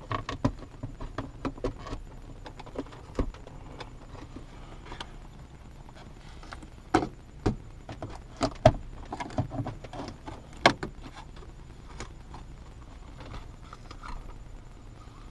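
Irregular clicks, knocks and rattles of hands and tools working on a car's shifter assembly as a grommet is pulled out. A few louder knocks come close together about seven to eleven seconds in.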